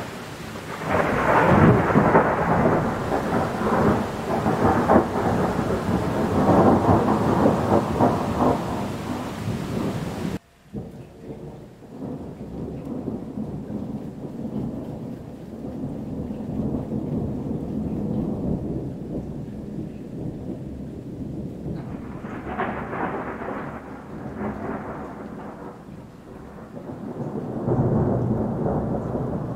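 Thunder rumbling and rolling loudly over a steady hiss of heavy rain. About ten seconds in, the rain hiss cuts off abruptly and lower thunder rumbles on, swelling twice more near the end.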